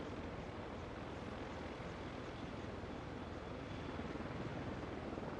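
Several CH-53E Super Stallion heavy-lift helicopters lifting off and flying low. Their rotors and turbines make a steady noise that grows slightly louder about four seconds in.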